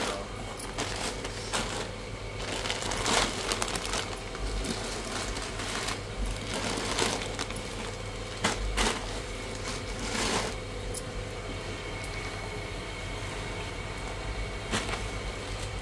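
Plastic-wrapped grocery packets rustling and crinkling as they are handled and set down, with scattered light knocks at irregular moments.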